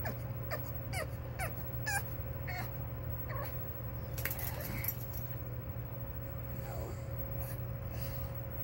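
Pug whimpering in a run of short high whines, about two a second, each sliding down in pitch, crying to be let out; the whines die away after the first three seconds or so.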